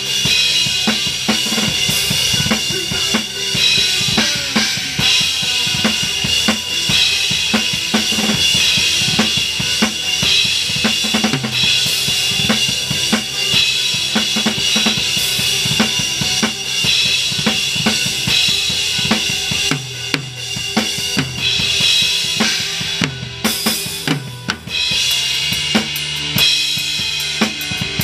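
Rock drum kit played live: a driving beat of bass drum and snare under a continuous wash of cymbals, with the rest of the band heard underneath. It thins out briefly about 23 seconds in, then comes back with a run of rapid strokes.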